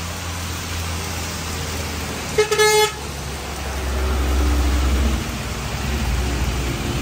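Motorcycle engine running on the move over road and wind noise, with a short, loud vehicle-horn toot about two and a half seconds in. The engine gets louder for about a second a little after the toot.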